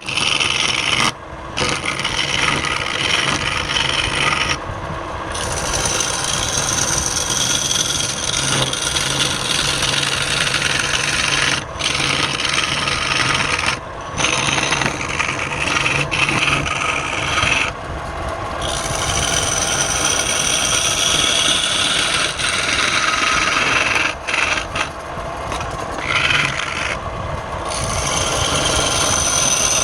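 Wood lathe turning a workpiece while a tool cuts and scrapes the spinning wood, making a continuous rasping hiss. The hiss breaks off in several brief gaps as the tool comes off the wood.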